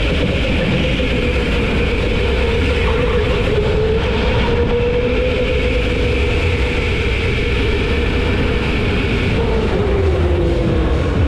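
Go-kart engine running steadily at speed, a loud drone over a heavy low rumble; its pitch falls over the last couple of seconds as the kart slows.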